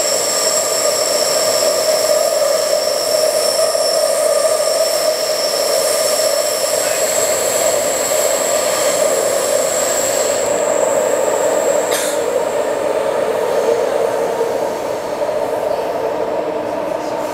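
Taipei Metro C381 train running through a tunnel, heard from inside the carriage: a steady rumble of wheels on rail with high steady whines that fade out about ten seconds in. There is a single sharp click about twelve seconds in.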